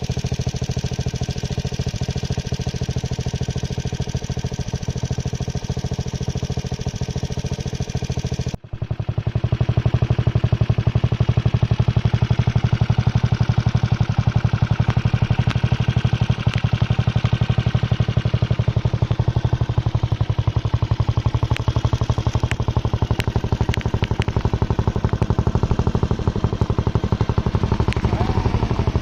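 Honda CG 125's single-cylinder four-stroke engine running steadily with an even, rapid exhaust beat. About nine seconds in the sound breaks off for an instant and comes back louder, with a few sharp clicks later on.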